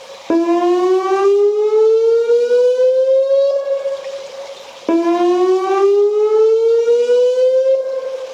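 Whelen WPS 2905 electronic outdoor warning siren sounding a tsunami alert: a loud tone that starts abruptly, sweeps slowly upward for about three seconds, holds briefly and fades away, twice.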